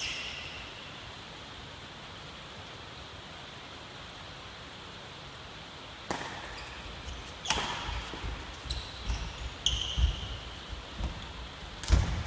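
Badminton rally: sharp racket strikes on the shuttlecock, one right at the start and then, about halfway through, a run of hits roughly a second apart, with low thumps of footsteps on the wooden sports-hall floor.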